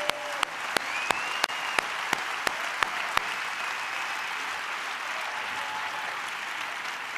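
Large theatre audience applauding steadily, with a run of sharp, close claps standing out over the first three seconds.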